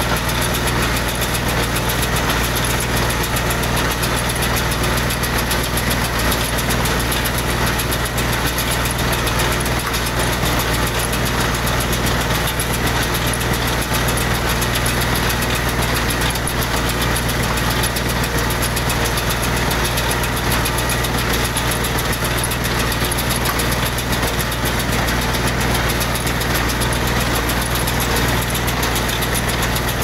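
Tractor engine running steadily under load while driving a New Holland 317 small square baler through its PTO shaft, the baler working as it picks up and bales hay.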